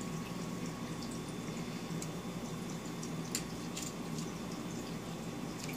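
Aquarium filter running: steady bubbling and trickling water over a low hum, with a few faint drip-like clicks, the sharpest a little past halfway.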